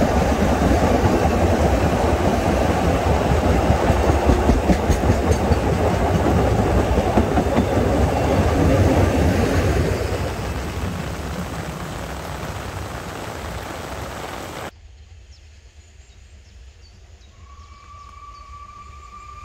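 Narrow-gauge goods train of wagons running past on the rails, a dense rumbling clatter that fades away from about ten seconds in. Near the end the sound drops suddenly to a much quieter outdoor background, with a faint steady high tone setting in shortly after.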